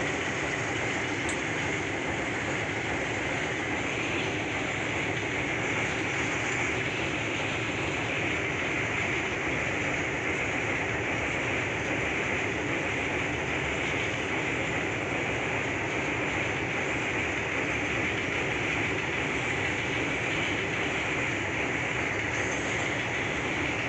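Freight train of covered goods wagons rolling across a steel truss bridge: a steady, unbroken noise of wheels and wagons passing on the rails, with no let-up.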